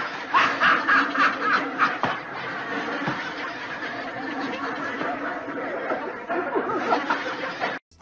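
People laughing and snickering, loudest in the first two seconds, then cutting off abruptly near the end.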